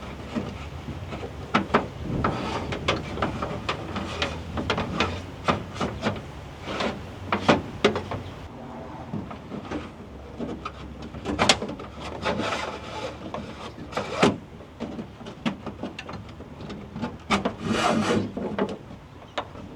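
Wires scraping and rubbing as they are fed through and pulled along a pickup truck's frame rail by hand, with many irregular clicks and knocks from the handling.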